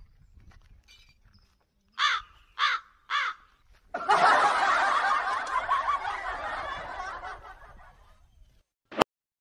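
Three crow caws about half a second apart, then a burst of crowd laughter that fades out over about four seconds, ending with a single sharp click.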